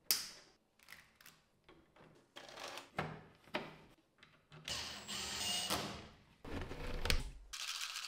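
Hard 3D-printed plastic parts being handled and set into the opening of a router table top: a sharp click at the start, then a series of short knocks and clatter, with two longer stretches of scraping and rattling in the middle and near the end.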